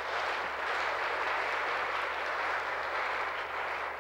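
Congregation applauding: dense, steady clapping that holds at an even level.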